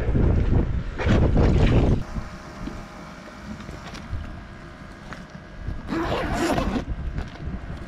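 Strong wind buffeting the microphone in gusts, loudest in the first two seconds, with a brief rustling scrape about six seconds in.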